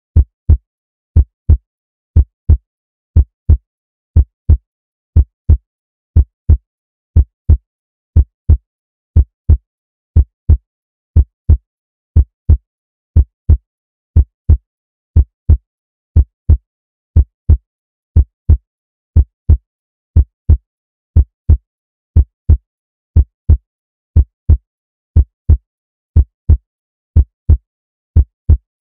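Heartbeat sound effect: a steady lub-dub, paired low thumps at about one double beat a second.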